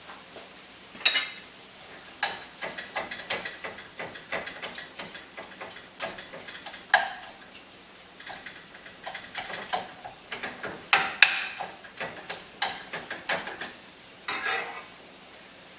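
A metal spatula scrapes and taps against a stainless steel pan, stirring and breaking up ground beef as it browns. Under it is a faint sizzle. The strokes are irregular, and a few sharper clanks stand out.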